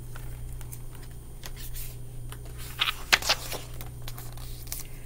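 Pages of a picture book being turned by hand: paper rustling and soft handling clicks, loudest in a short cluster about three seconds in, over a steady low electrical hum.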